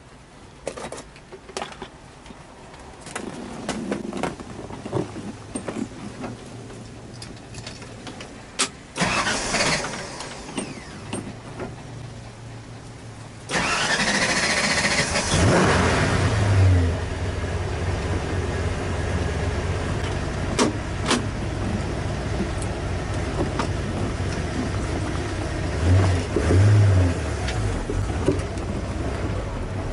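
1967 Ford Fairlane GT's V8 engine being started. Scattered clicks and knocks give way, about halfway through, to a sudden burst as it cranks and catches. It then runs steadily, swelling briefly twice.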